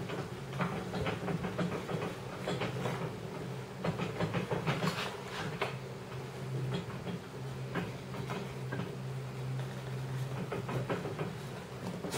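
Black rubber boot on a boat-shade actuator motor being worked around by hand and pushed into the end of the metal actuator tube: irregular small clicks, rubs and taps of rubber, wires and metal. A steady low hum runs underneath.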